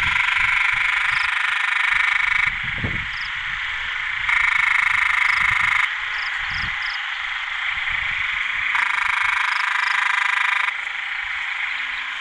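A breeding chorus of male narrow-mouthed frogs (Thai 'ueng daeng', red ueng) calling for females after heavy rain: a dense steady calling, with a nearer frog's louder call rising out of it three times for a second or two each.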